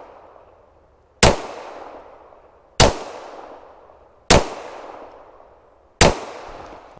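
Four 9mm pistol shots from a Glock 34 Gen 5, fired slowly about one and a half seconds apart as slow, aimed head shots. Each shot trails off in a short echo.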